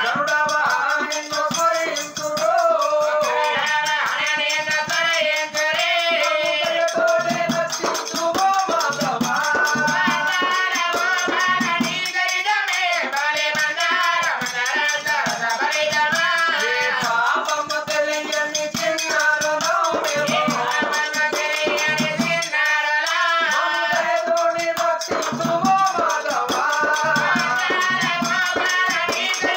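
Oggu Katha folk singers sing a devotional song over a steady held drone, with a constant rattling, jingling percussion accompaniment.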